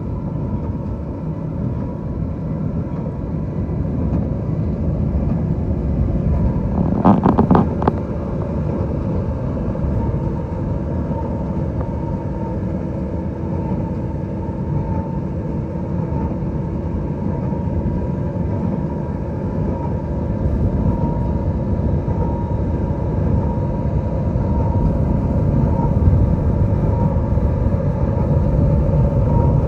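Fendt 936 tractor and Hesston UHD large square baler running at field speed while baling straw: a steady drone of engine and machinery. About seven seconds in comes a short burst of loud knocks.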